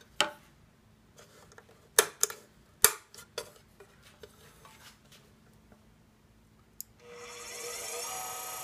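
Several sharp clicks and knocks of switches and handling at the DC motor speed control. Near the end the welding positioner's DC motor spins up with a rising whine and settles into a steady running whine.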